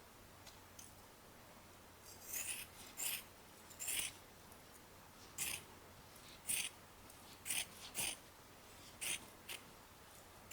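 Short scratchy rustling bursts of materials being handled and worked, starting about two seconds in and repeating irregularly about once a second.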